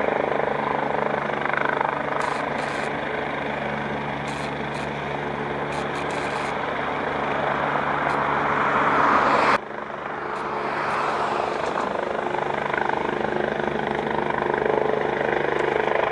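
Rescue helicopter hovering: a steady, loud rotor and engine drone. The sound drops abruptly about halfway through and then builds back up.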